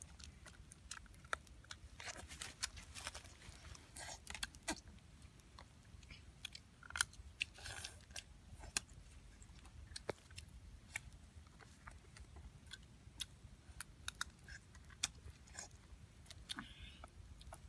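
Eating sounds: irregular small clicks and crunches as grilled fish and small snails are picked apart by hand and chewed, over a faint low rumble.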